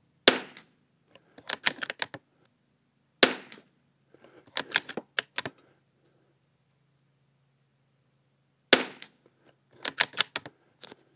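Three sharp shots from a Savage Mark II bolt-action rimfire rifle, fired a few seconds apart, each followed about a second later by a quick run of metallic clicks as the bolt is worked to eject and chamber the next round.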